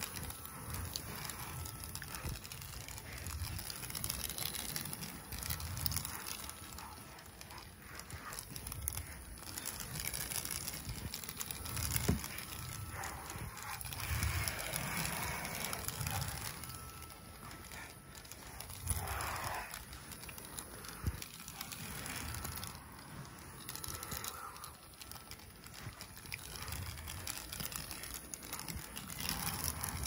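Small toy car pushed by hand across carpet close to the microphone: its wheels and the fingers scuff and rustle on the pile in an uneven noise that rises and falls, with low bumps.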